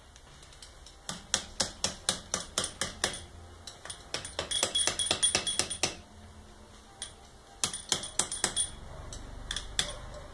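Metal parts of a motorcycle front fork clicking and clinking as they are worked by hand: a run of sharp clicks a few a second, a denser burst of ringing metallic clinks in the middle, then a few more clicks near the end.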